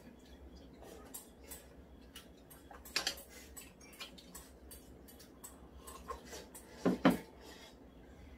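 Mealtime eating sounds: scattered small clicks and taps of chopsticks on ceramic bowls, with noodles being slurped and chewed. Two louder short sounds come about three and seven seconds in.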